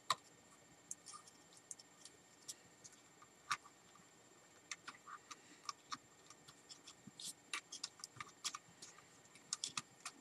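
Faint, irregular small clicks, taps and scrapes as fingers handle a drone's ESC circuit board and its wires, pressing them into the plastic shell. The clicks come a little more often near the end.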